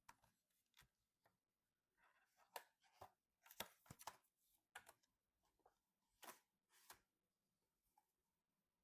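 Faint clicks, taps and crinkly rustles of PC component packaging being handled and opened, a quick run of them in the middle of the stretch.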